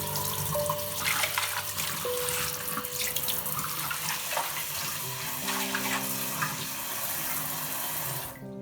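Tap water running and splashing into a kitchen sink, shut off abruptly just before the end, over soft background music.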